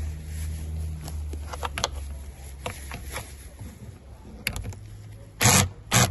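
Working noises on plastic interior trim: scattered light clicks and scrapes, then a couple of loud short rasping bursts near the end.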